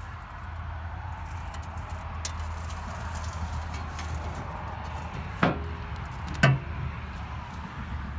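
A 1998 Chevy sweeper truck's engine idling as a steady low hum, with two sharp knocks about a second apart a little past halfway, the second the louder.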